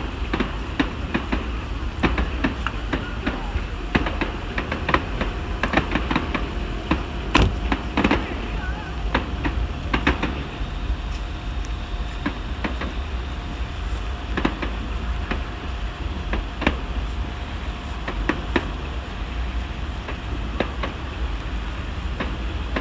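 Fireworks going off at a distance: irregular sharp pops and crackles over a steady low rumble, busiest about a third of the way in.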